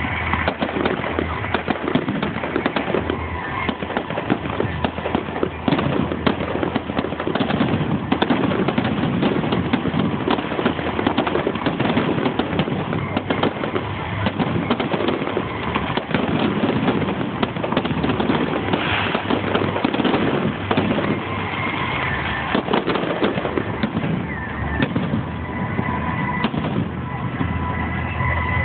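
Fireworks display going off in a dense, unbroken barrage of bangs and crackling, heard through a phone's microphone.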